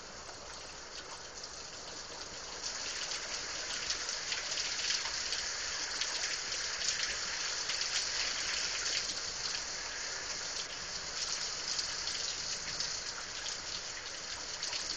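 Heavy rain pouring down in a storm: a steady hiss that swells about two and a half seconds in, with the fine ticks of nearby drops.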